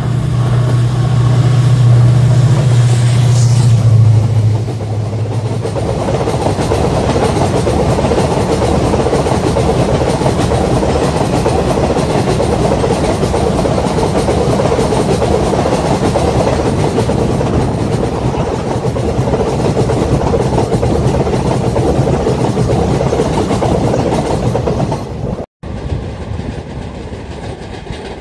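WDP4D diesel-electric locomotive, with its EMD 16-cylinder two-stroke engine, passing close with a deep steady engine drone and a thin high whine. About five seconds in, the passenger coaches take over with a steady rush of wheels on rails. Near the end the sound cuts out briefly and comes back quieter.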